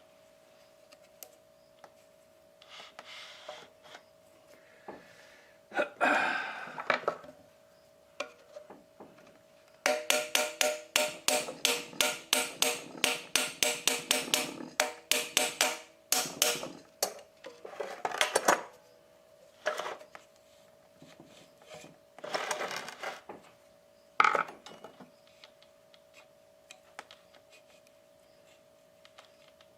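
A quick run of sharp metallic taps, about five a second for some seven seconds, with scattered scrapes and knocks around it: parts of the knife-sharpening machine being tapped and handled during repair. A faint steady tone sits under it all.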